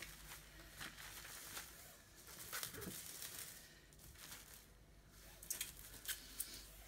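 Clear plastic cling film crinkling and rustling softly as a damp roll of wool top is rolled and pressed on it, with a few sharp crackles near the end.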